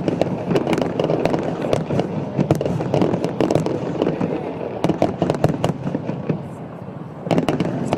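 Fireworks display: a dense run of cracks and bangs over a continuous rumble. It thins out about two-thirds of the way through, then another quick cluster of bangs comes near the end.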